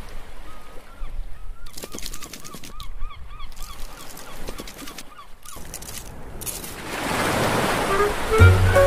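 Cartoon sound effects for a scuttling crab: a run of short squeaky chirps, about three a second, with light clicks. Then a rising rush of surf as a wave washes in, and music starts near the end.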